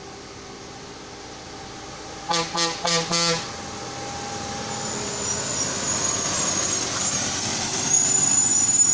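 A lorry's horn sounds four short toots. Then the lorry's diesel engine and tyres grow steadily louder as it comes round the bend and passes close, with a thin high squeal over the noise.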